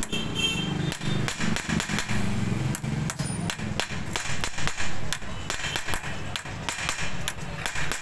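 Steel hammer blows, a few a second, striking an old steering-head cone set upside down as a drift to drive a new bearing cone into a Hero Splendor Plus motorcycle's frame head tube: sharp metal-on-metal knocks.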